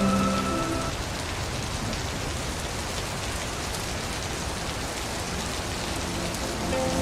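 Steady rain falling and splashing on a wet surface. Soft, sustained music tones fade out about a second in and come back near the end.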